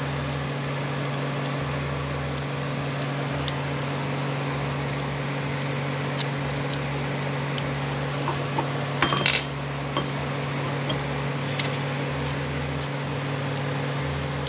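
Light metallic clinks and taps of T5 transmission parts being handled and fitted by hand, with a short run of louder clinks about nine seconds in, over a steady background hum.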